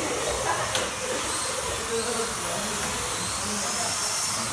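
Slot cars' small electric motors whining as they lap the track, over a steady hiss, with faint whines rising and falling in pitch; a sharp click about a second in.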